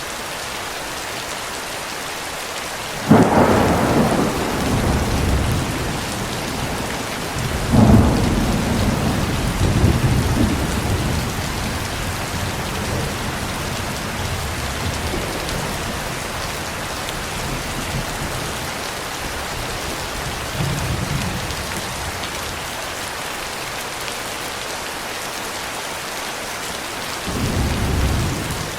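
Steady rain falling, with thunder: a sudden clap about three seconds in, a second about eight seconds in that rumbles on for several seconds, a fainter rumble a little past the middle, and another low rumble near the end.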